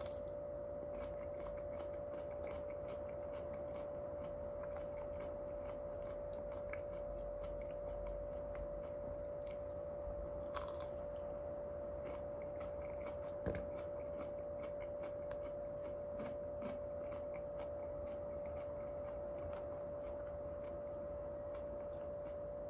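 Close-up chewing of raw okra pods dressed with mayonnaise: many small crunches and wet mouth clicks, with one sharper knock about halfway through. A steady humming tone runs underneath.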